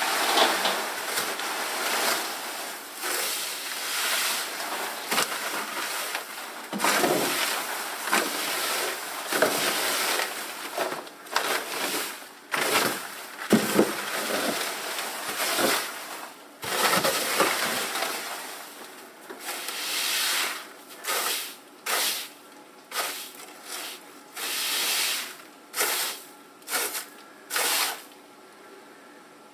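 Hay bedding and chicken droppings being scraped and pushed across a chicken coop floor with a long-handled tool, a rustling, scraping noise. Near the end it breaks into separate strokes about one a second.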